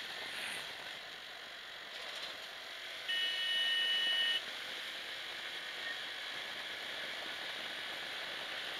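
Steady wind and road noise from a motorcycle riding along a highway, with a vehicle horn sounding one steady note for about a second and a half around the middle.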